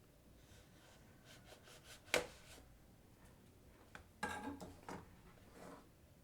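The paper seals on a Samsung Galaxy A14 phone box being broken: light ticks, one sharp click about two seconds in, then a short scraping, rustling tear of the seal about four seconds in.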